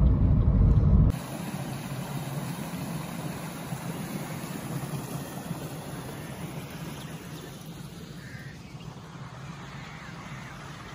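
Low rumble of a car driving, heard from inside the cabin, cuts off about a second in. It gives way to quieter outdoor ambience, a steady hiss with a few faint distant bird calls.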